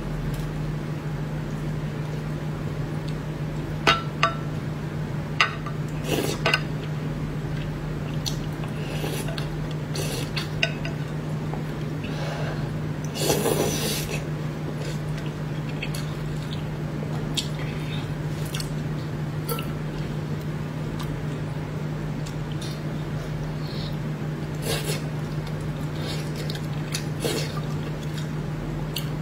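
Chopsticks clicking and scraping against a plate and bowl while braised fish is picked apart and eaten, with mouth sounds of eating; scattered sharp clicks, a louder, noisier sound about 13 seconds in, and a steady low hum underneath.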